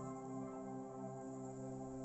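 Background ambient music: sustained held tones, steady throughout.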